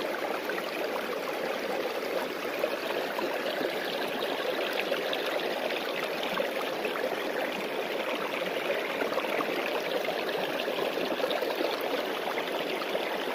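River water running steadily through a sluice box and over its ribbed matting.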